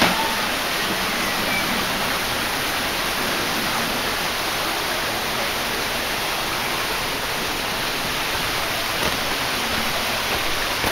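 Shallow stream running over stones, a steady rush of water, with a brief knock right at the start.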